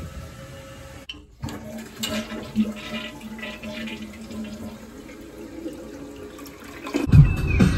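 Toilet flushing, water rushing and swirling down the bowl, in a tank just fitted with a new fill valve and flapper. Music comes in near the end.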